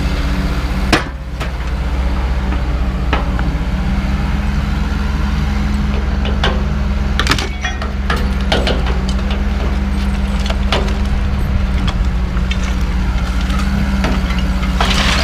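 A vehicle engine running steadily with a low drone, with a few sharp knocks or clanks over it, the loudest about a second in.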